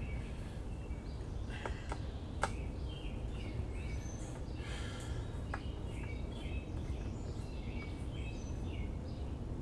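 Small birds chirping over a steady low rumble, with a few sharp clicks as parts are handled on the Stihl FS90R trimmer's engine housing: three around two seconds in and one a little past halfway.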